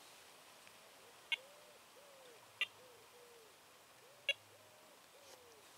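Three short bleeps from carp bite alarms about a second and a half apart, set off as the lines are set on the rods. Behind them a bird coos faintly in repeated pairs of soft notes.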